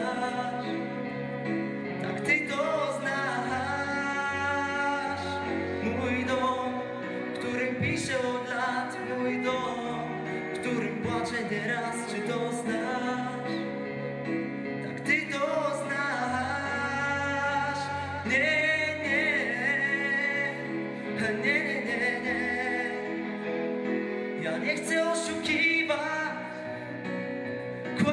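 Young male soloist singing a Polish pop ballad into a handheld microphone, with a mixed student vocal ensemble singing harmonies over a sustained low bass line.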